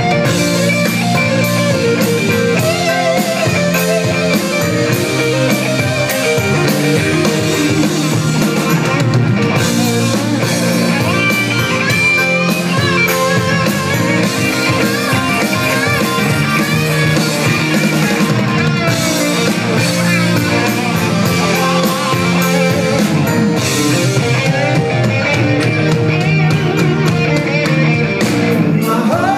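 Live rock band playing an instrumental passage: electric guitars and a drum kit, with a melodic guitar line that bends in pitch over the steady band, and no vocals.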